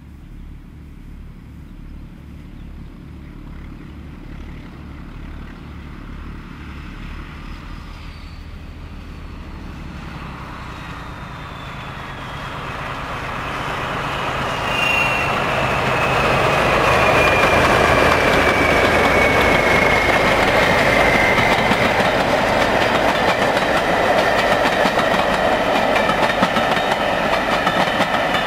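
A pair of BR Class 14 diesel-hydraulic locomotives with Paxman Ventura engines working a coach train as it approaches and passes. The engine beat grows steadily louder, and a high whine falls in pitch as the locomotives go by. From about halfway through, the coaches' wheels clatter over the rail joints.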